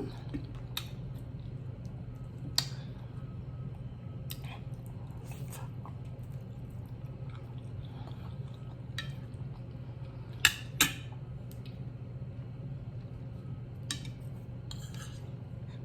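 Eating sounds at the plate: scattered light clicks of cutlery against dishes and small wet mouth noises, the sharpest two clicks close together about ten seconds in, over a steady low hum.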